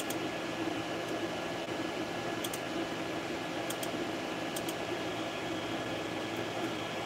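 Creality 3D printer running mid-print: a steady whir from its cooling fans with the hum of the stepper motors as the print head moves. A few faint clicks come in pairs around the middle.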